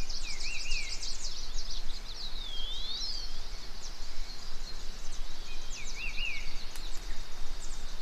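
Countryside ambience of birds calling: quick chirps, a short zigzag phrase heard twice, and a call that swoops down and back up, over a steady high hiss.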